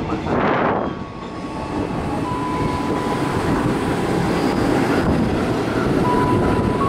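KRL Commuterline electric multiple-unit train passing close alongside the platform: a loud, steady rumble of wheels on the rails, with a thin, steady high whine over it.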